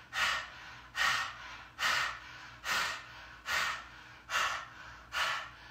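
A woman's forceful breaths pushed out through the open mouth in a kundalini yoga breathing exercise: seven evenly paced, rasping breaths, a little more than one a second.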